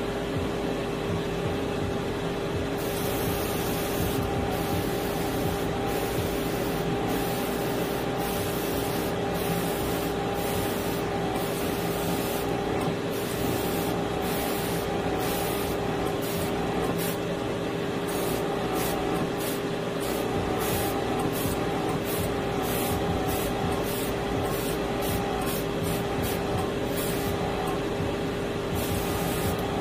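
Airbrush spraying acrylic surface primer in many short bursts of hiss, starting about three seconds in, as the trigger is worked on and off. Under it runs a steady motor hum.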